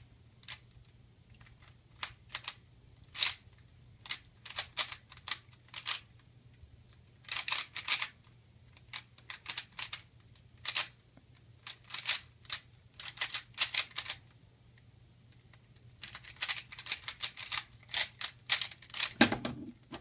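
Plastic 3x3x3 Rubik's cube turned at speed: quick bursts of clicking layer turns with short pauses between them, and a heavier knock near the end.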